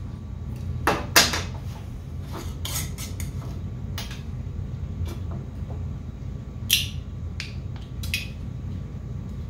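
Metal mason jar lid and screw band, and a utility knife, being handled and set down on a steel table saw top: a series of sharp clinks and taps, loudest about a second in and near seven seconds, over a steady low hum.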